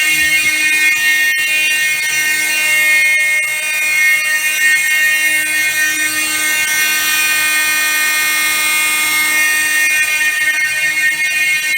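Several fire alarm sounders going off together in a continuous, loud, shrill electronic tone, made of many steady high pitches at once.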